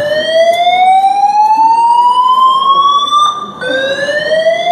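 Building fire alarm sounding a loud slow-whoop evacuation tone: a rising sweep lasting about three seconds, a brief break, then the next sweep starting again from low.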